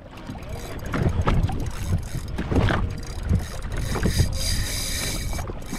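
Water slapping against a jet ski's hull in choppy sea, heard as irregular low thumps, with wind on the microphone.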